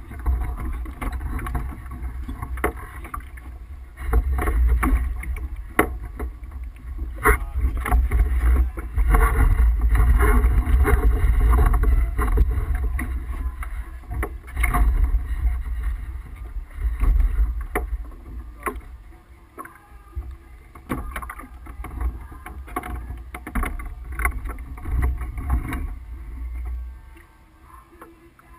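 Wind buffeting the microphone in strong gusts and water rushing along the hull of a Tripp 37 sailboat under way, with scattered knocks and clicks. The gusts are heaviest about four seconds in and again from about nine to thirteen seconds.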